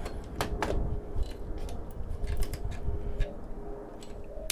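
Small metal tools clicking and scraping against a circuit board and a ceramic chip as screwdrivers prise the chip free: two sharp clicks about half a second in, then lighter scattered clicks.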